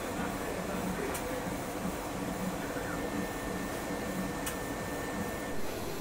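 Selective soldering machine running, a steady mechanical hum that pulses low. A light click comes about a second in and another at about four and a half seconds, with a thin high whine for about three seconds in the second half.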